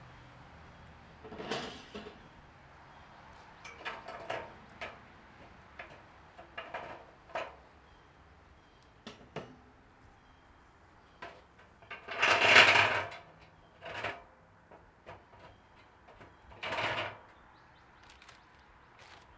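Steel rebar hanging rods being slid through the holes in a Pit Barrel smoker's steel drum and set across the rim: a series of separate metal clinks and scrapes. The longest and loudest scrape comes about twelve seconds in, with another about seventeen seconds in.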